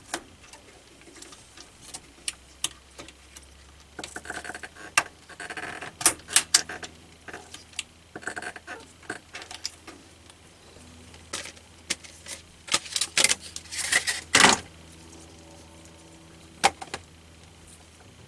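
Scattered sharp plastic clicks and snaps with short bursts of rustling, as a Corsair DDR3 RAM stick is handled and pressed into a motherboard memory slot; the busiest, loudest stretch comes about two thirds of the way through.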